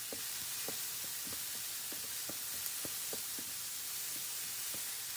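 Diced onion, carrot and green pepper sizzling steadily in a frying pan while being stirred with a wooden spatula, which gives light knocks against the pan about three times a second.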